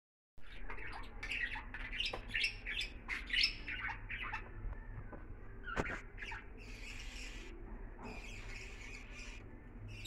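Budgerigars chirping and squawking in a quick string of short, sharp calls, thinning to a softer chatter after about halfway.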